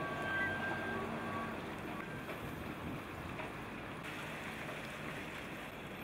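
Heavy-haulage truck with a multi-axle trailer running, heard as a steady, even noise with a few faint high tones.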